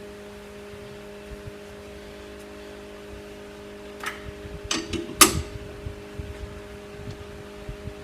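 Steady electric hum of running metal-lathe shop machinery, with a few sharp metallic clanks about four to five seconds in, the loudest near five seconds.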